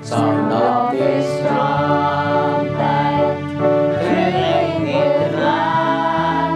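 Church congregation singing a hymn in unison with keyboard accompaniment: the voices come in right at the start over sustained chords and a bass line that steps from note to note.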